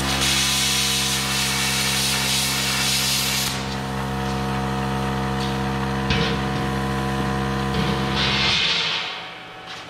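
Hypertherm Powermax30 AIR plasma cutter cutting 1/8-inch steel plate. The arc gives a loud hiss for about the first three and a half seconds, over the steady hum of the machine's built-in air compressor. The hum runs on, with a short burst of air hiss, and stops shortly before the end.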